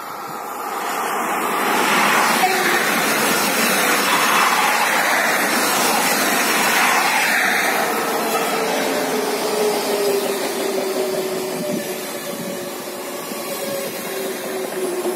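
Z 20500 double-deck RER electric multiple unit running past at close range, a loud rumble and hiss of wheels and running gear that builds over the first couple of seconds. From about halfway a motor whine sinks slowly in pitch as the train slows.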